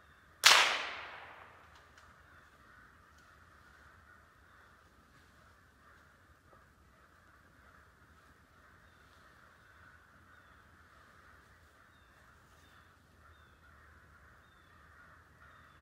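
A single gunshot from a squirrel hunter, sharp and loud about half a second in, its echo dying away over about a second. After it there is only a faint steady high hiss with a few short faint chirps.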